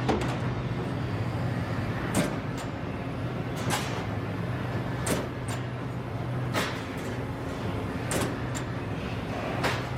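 Finn-Power CNC turret press running: a steady hum with a sharp stroke about every second and a half, seven strokes in all.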